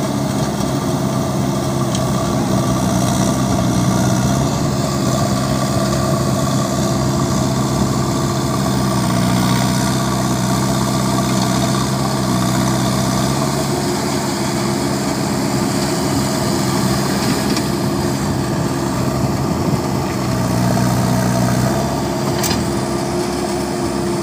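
Diesel engine of a JCB 3DX backhoe loader running steadily at a near-constant speed, its pitch shifting slightly about nine seconds in and again near the end. A single short click near the end.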